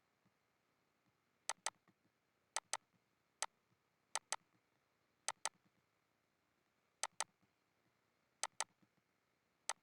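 Computer mouse button clicking, sharp single clicks and quick double clicks every second or so.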